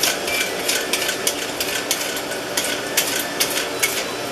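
Quick scraping strokes of a vegetable peeler on a potato, about three a second, under a running kitchen tap, with the steady hum of the house's well pump running.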